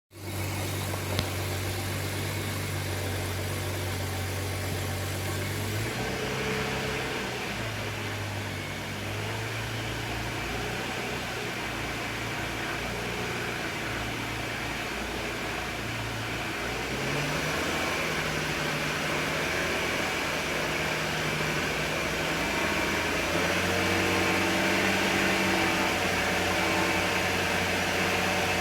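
BMW 335i turbocharged inline-six running at low rpm, with a steady hum that shifts in pitch several times and steps up twice in the second half, plus one sharp click about a second in. The owner suspects the noise it makes at low rpm under light or no load is the beginning of rod knock.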